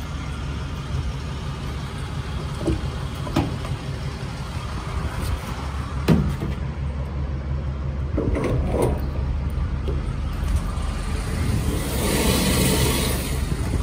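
Steady low rumble of an idling vehicle engine. Over it come a few clicks and knocks as a fuel nozzle and hose are moved into place, the sharpest about six seconds in, and a brief hiss near the end.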